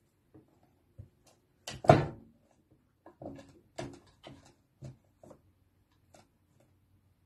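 Knocks and clunks as a cat paws at a window frame and its metal latch: one loud knock with a short ring about two seconds in, then a run of lighter knocks and rattles.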